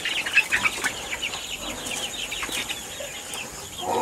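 Chickens calling: a quick run of short, high, falling chirps that thins out about halfway through.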